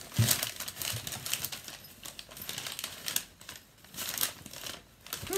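A thin grey garment bag rustling and crinkling as it is handled and unfolded, irregular, with a few sharper crinkles.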